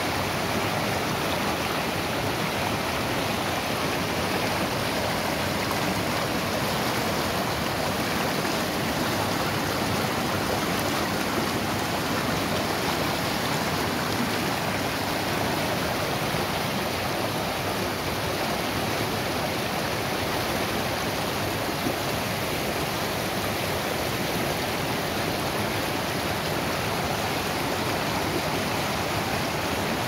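Mountain stream rushing over and between boulders in small white-water rapids, a steady, even rush of water.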